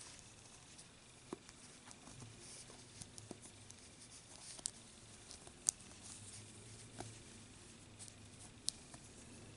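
Faint handling noise of a pipe cleaner being bent and shaped by hand: soft rustling with scattered small clicks, about six of them.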